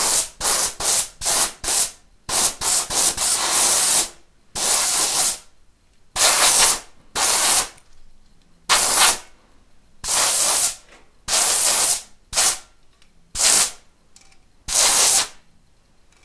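Aerosol spray paint can spraying in repeated hissing bursts: a quick run of short sprays over the first few seconds, then longer sprays of about a second each, a second or so apart.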